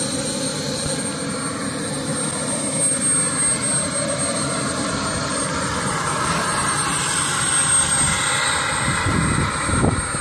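Small gas turbine of a large radio-controlled BAe Hawk model jet running at low power while the model taxis, a steady high whine over a continuous rushing noise.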